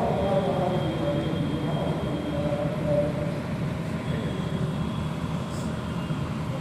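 A man's voice trailing off in the first few seconds, over a steady low rumble with a faint thin high whine.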